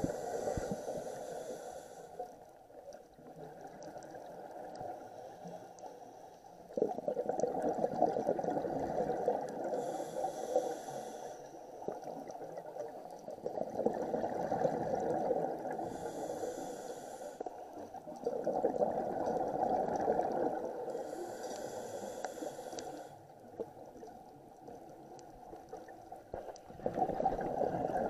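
Scuba diver breathing underwater through a regulator: long stretches of rushing, bubbling exhaust noise that swell and fade in a slow cycle, several seconds per breath, with a brief faint hiss between some of them.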